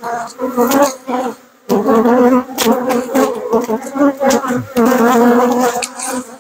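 Honey bees buzzing loudly and close to the microphone, a dense, wavering hum from many wings, with a few light clicks. It is the sound of a defensive, agitated colony stirred up by the opened hive.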